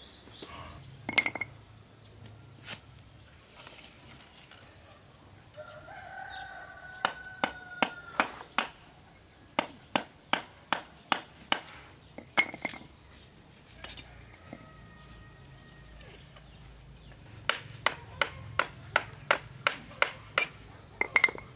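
Runs of sharp knocks, about two to three a second, with a rooster crowing once about six seconds in.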